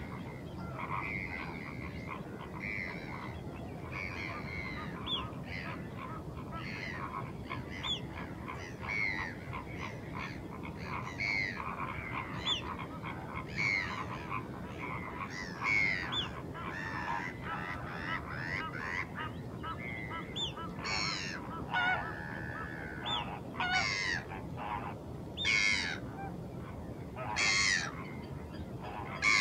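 Many wild birds calling at once, with short overlapping calls throughout, over a steady low background rumble. In the last third, louder single calls stand out about every two seconds.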